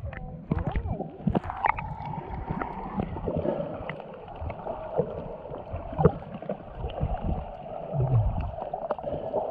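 Muffled underwater sound through a submerged action camera: water gurgling and sloshing from swimmers kicking close by, with scattered small clicks and crackles and a few low thumps about eight seconds in.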